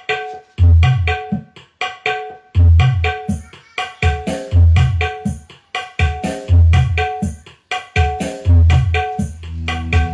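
Drum-led music played back loud over a PA speaker system fed straight from a phone through a dbx 224XL crossover and power amplifier, with no mixer or equaliser. Deep bass hits come about every two seconds, with quicker sharp hand-drum strokes between.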